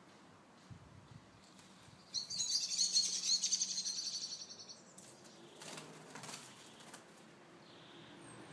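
A bird's rapid, high-pitched chattering call, lasting about two and a half seconds from about two seconds in: the harsh chatter of birds squabbling in a spring fight. A few fainter rustling sounds follow.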